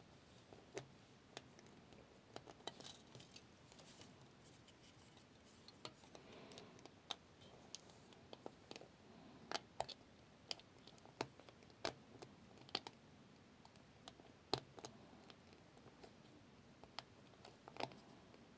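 Faint, irregular small clicks and ticks of thin metal wire and a winding tool catching against small nails as the wire is wrapped around them, roughly one click a second.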